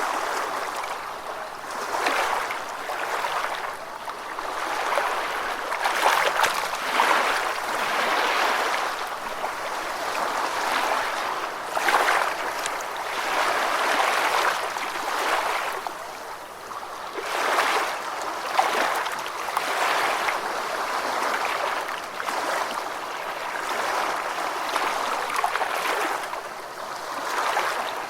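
Gentle ocean waves lapping at the shore: a hissing wash of water that swells and eases every couple of seconds, with little low rumble.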